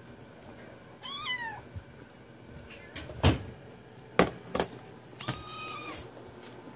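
Cats meowing for food: a short falling meow about a second in, and a longer, steadier meow near the end. In between come three sharp knocks as the plastic food bowl is set down on the wooden floor.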